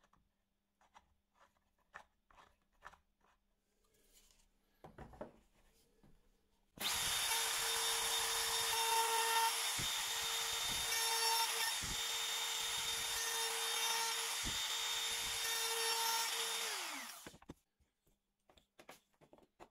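Light clicks of handling, then a trim router starts and runs steadily with a high whine and a few knocks. After about ten seconds it is switched off and winds down with a falling pitch.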